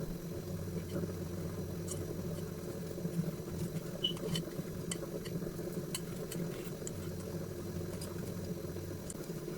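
Steady low hum of a running kitchen appliance, with a few faint light clicks and taps from kitchenware being handled.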